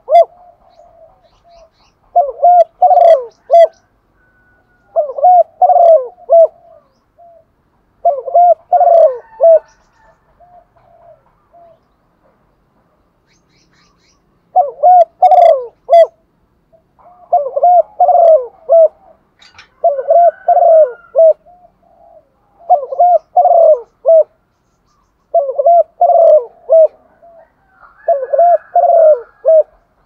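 Female spotted dove cooing, the hen's call that rouses male doves to coo. About nine short coo phrases, each a second or so long, come in a steady series, broken by a silent stretch of about four seconds near the end of the first third.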